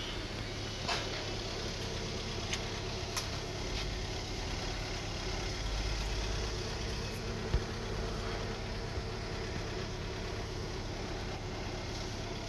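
Steady low mechanical hum of a running motor, with a few short, sharp clicks and taps scattered through it.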